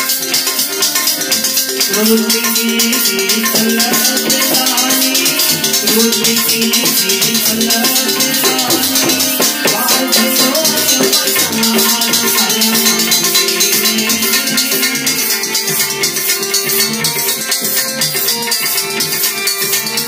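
Gujarati desi bhajan music: tabla drumming with sustained harmonium melody, carried on a fast, steady high jingling pulse.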